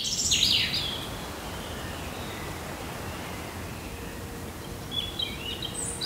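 Songbirds chirping over the steady rush of a fast mountain river. A loud flurry of calls comes in the first second, and more short calls near the end.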